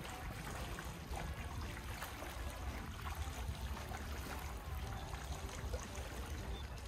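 Seawater lapping and trickling against the rocks of a stone sea wall, with a low steady rumble underneath.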